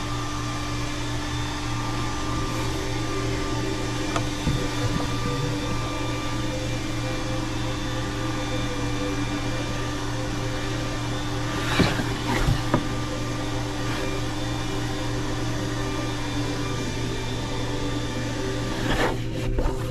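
Steady mechanical hum of room machinery with a few steady tones in it, broken by a few short faint sounds about 4 seconds, 12 seconds and 19 seconds in.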